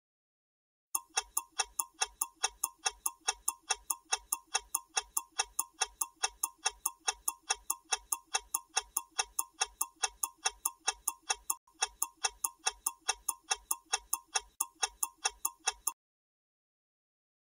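Countdown timer sound effect: a clock-like tick repeating rapidly and evenly for about fifteen seconds. It starts about a second in and cuts off suddenly near the end, when the timer reaches zero.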